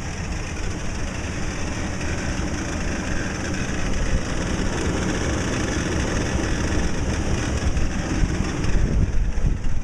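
2008 Toyota Tacoma engine running with a steady grinding noise from its failing drive belt tensioner.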